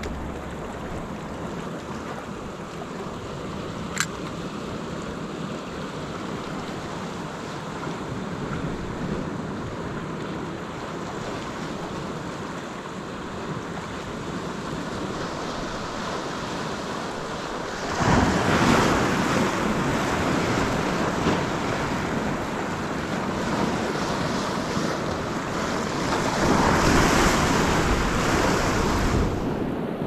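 Ocean surf washing over and around shoreline rocks, with the wash surging louder twice, about 18 seconds in and again near 27 seconds. A single sharp click sounds about 4 seconds in.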